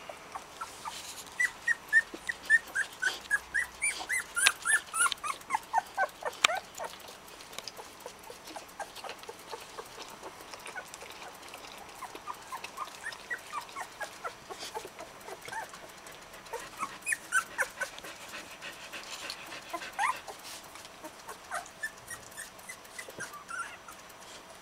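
Newborn puppies squeaking and whimpering in quick, high-pitched squeals. The squeals come thickest in the first several seconds, then in scattered short runs.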